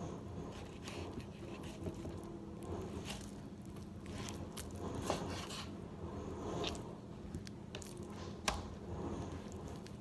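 Raw pork being sliced with a kitchen knife and handled by hand: soft, wet squishing and sticky handling noises with scattered small clicks, and a couple of sharp knocks about halfway and near the end.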